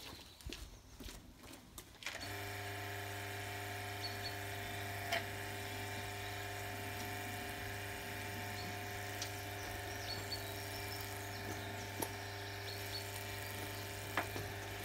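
An electric motor switches on about two seconds in and then hums steadily at one unchanging pitch. A few faint clicks come before it.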